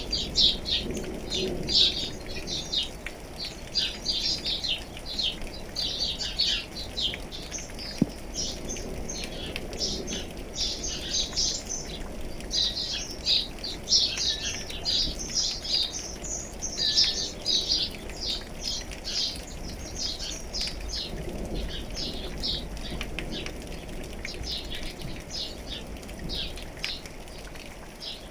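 Many small birds chirping busily in quick, overlapping calls, over a steady low hiss of rain.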